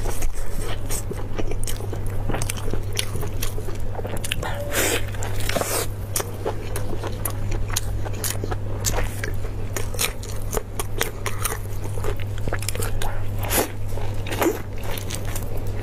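Close-miked eating: biting, tearing and chewing sauce-coated beef ribs, a dense run of small mouth clicks and crunches throughout, over a steady low hum.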